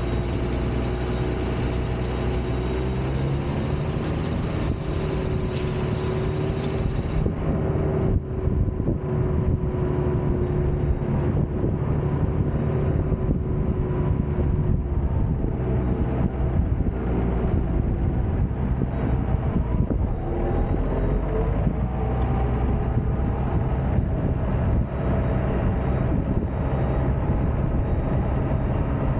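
Tractor engine running steadily under load while it pulls a field implement across tilled ground, with a brief dip in its sound about eight seconds in.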